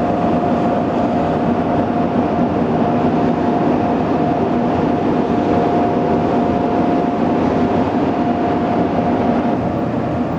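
Steady drone of a ship's machinery, with a constant mid-pitched whine over a low hum. The whine fades near the end.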